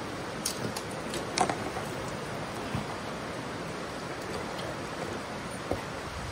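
Steady rush of a shallow stream flowing over rocks, with a few short sharp knocks or splashes, the loudest about a second and a half in.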